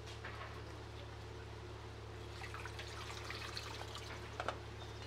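A thin stream of water pouring from an earthenware jug over tomatoes being rinsed by hand into a metal basin, with a few small knocks of handling.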